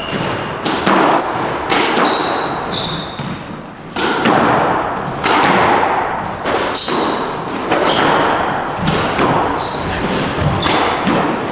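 Squash rally: a quick run of sharp ball strikes off rackets and the walls, echoing in the enclosed court, with shoes squeaking on the wooden floor between shots.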